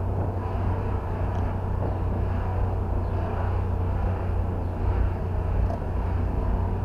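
Audi TT running with a steady low rumble, its engine suffering from a large vacuum leak: both intake-manifold caps have come off.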